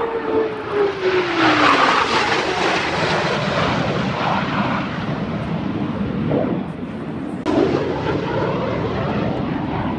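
Blue Angels F/A-18 Hornet jets flying past in formation with a continuous jet roar. A whining tone drops in pitch in the first two seconds as the jets go by.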